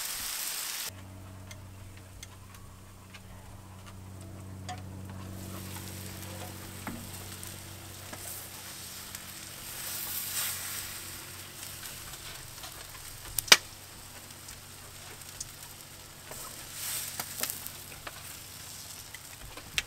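Whole fish sizzling on a gas grill, loud for about the first second, then a quieter hiss over a steady low hum. Metal tongs clicking against the grill and a metal tray as the fish are lifted off, with one sharp loud clack about two-thirds of the way through.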